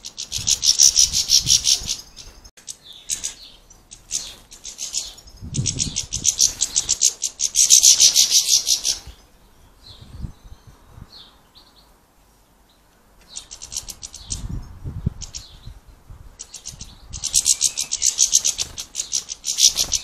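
European goldfinches twittering in bursts of rapid, high, fast-repeated notes, with a lull of a few seconds in the middle.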